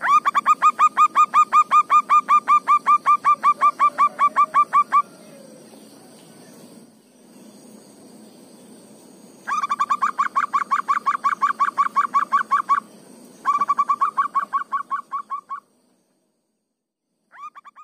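Zebra dove (perkutut) cooing in fast runs of short, evenly spaced notes, about seven a second, each note dipping slightly in pitch. One long run lasts about five seconds; after a pause come two shorter runs and a brief start near the end, over a faint steady hum and a thin high tone.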